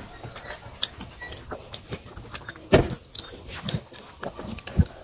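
Close-up mouth sounds of two people eating chicken liver and gizzards with rice: chewing, lip-smacking and small wet clicks, with two louder smacks, one a little past halfway and one near the end.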